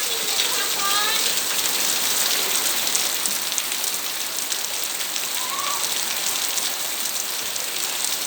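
Steady rain falling, with a few short, faint voice sounds near the start and again about five and a half seconds in.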